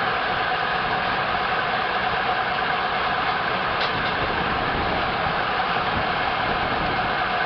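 Frick steam engine driving sawmill machinery, running steadily with an even mechanical noise and no clear beat. There is one faint tick about four seconds in.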